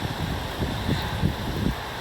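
Wind gusting outdoors, buffeting the microphone in irregular low rumbles over a steady hiss.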